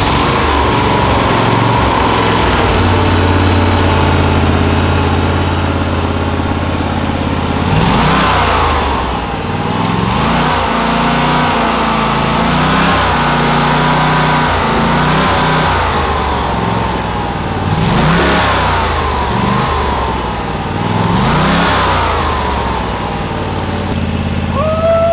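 DuroMax 999cc V-twin engine running on a stand moments after its first start. It idles, then is revved several times with its electronic throttle, the pitch climbing and dropping back: one rev about eight seconds in, a longer wavering high-speed run after that, and two more short revs.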